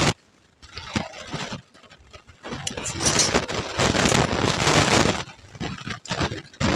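Close-up crunching of puffed rice (muri) mixed with ghugni being chewed, with a steel spoon scraping and stirring the puffed rice on a steel plate. The sound comes in irregular bursts of crisp crackling after a brief pause near the start.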